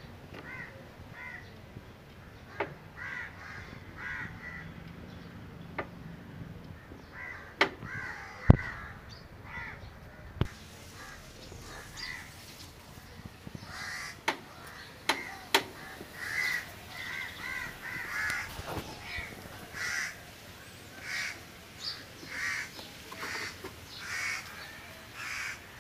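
Crows cawing over and over, the caws coming quicker and steadier in the second half. A few sharp clicks and knocks stand out among them, the loudest about eight seconds in.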